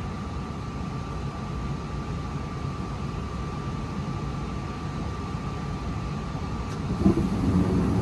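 Daikin gas furnace's blower fan running steadily with a low rumble and a faint steady whine. About seven seconds in there is a click and the sound grows louder as the burners light again. The furnace keeps lighting and then shutting off, which the owner puts down to a dirty flame sensor.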